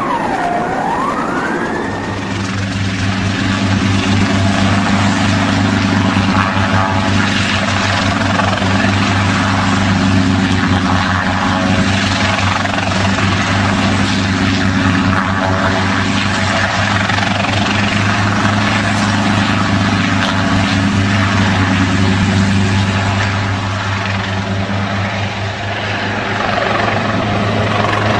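Light helicopter running: a steady engine drone with the even beat of the rotor blades, holding level from a couple of seconds in. At the very start a siren wails up and down once and fades out.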